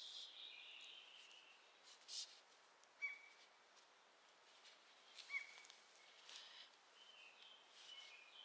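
Faint birds calling outdoors: scattered short chirps and whistled notes, one gliding down near the start and a string of quick notes near the end.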